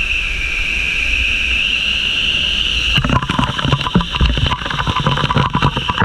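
Waterfall pouring steadily, heard up close as an even rush with a low rumble. About three seconds in, a rapid run of clicks and knocks cuts in over the rush.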